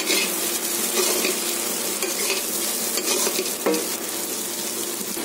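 Chopped okra and onion frying in oil in a steel kadai, sizzling steadily while a flat steel spatula stirs and scrapes through it, with one sharper knock of the spatula on the pan a little before the end.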